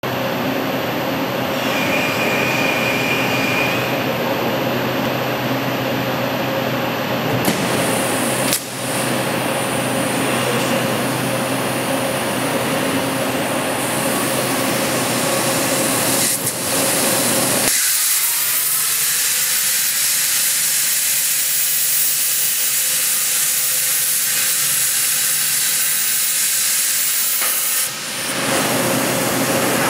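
Steady machine and shop noise, then about 18 seconds in a high-definition plasma torch on a CNC bevel cutting head fires and cuts a hole through a steel pressure-vessel dome: a loud, high hiss that holds for about ten seconds and stops suddenly near the end.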